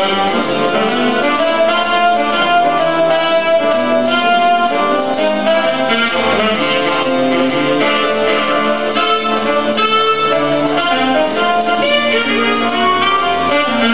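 Live instrumental music: a melody of held notes over piano or keyboard accompaniment and a bass line, playing continuously.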